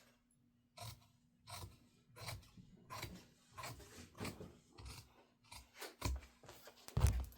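Scissors snipping through shade fabric, about a dozen cuts in a steady run, the last near the end the loudest. The cuts trim away one layer of a double-folded hem to reduce bulk.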